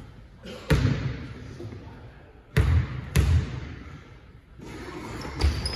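A basketball bounced three times on a wooden sports-hall court. The thuds come about 0.7 s, 2.6 s and 3.2 s in, and each one echoes around the hall.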